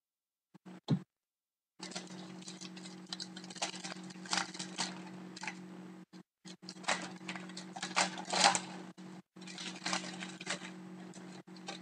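Foil wrapper of a hockey card pack crinkling and crackling as it is handled and torn open, with louder crackles about four seconds in and again around seven to nine seconds, over a steady low hum.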